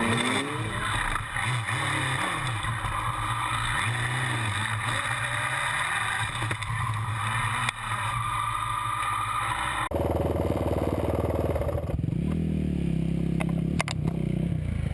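Motorcycle engine running steadily, then revved with its pitch rising and falling about twelve to fourteen seconds in.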